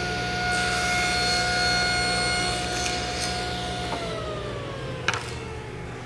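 Table saw running through a rip cut on a thin board, with a steady whine. About four seconds in the saw is switched off and the whine falls in pitch as the blade spins down, with a light knock a second later.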